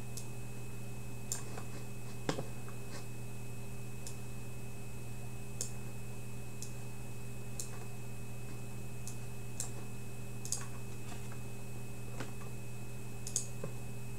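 Scattered light clicks of a computer being worked, about one a second at irregular spacing, the strongest a little over two seconds in. Under them runs a steady electrical hum with a faint high whine.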